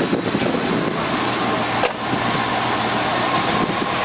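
A 1994 Ford Lightning pickup idling: a steady, even running noise with one sharp click a little under two seconds in.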